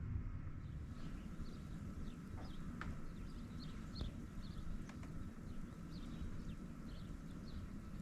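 Small birds giving short, high chirps, a dozen or so scattered through, over a steady low rumble.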